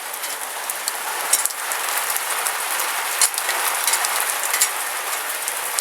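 A heavy rain shower falling on tile-effect steel roofing panels: a steady hiss with many scattered sharp drop taps. It swells over the first second or so, then holds.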